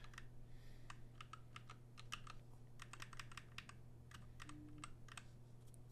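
Faint typing on a computer keyboard: irregular keystrokes, some in quick runs, over a steady low hum.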